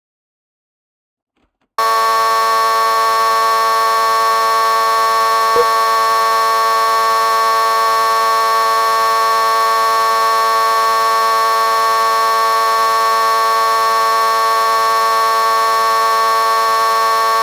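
A loud, steady alarm-like buzzing tone held at one pitch. It starts suddenly about two seconds in, after near silence, with a faint click about five and a half seconds in.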